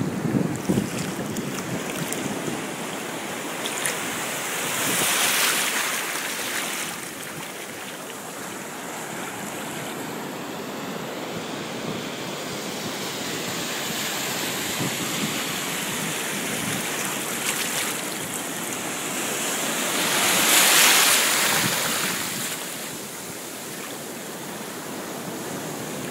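Shallow surf washing around at the water's edge, with two larger waves swelling up and falling away, about five seconds in and again about twenty seconds in.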